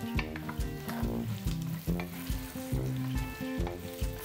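Bacon, pork sausage and carne de sol sizzling as they fry in their own fat in an aluminium pot, stirred with a wooden spoon. Background music with a steady beat and bass line plays throughout.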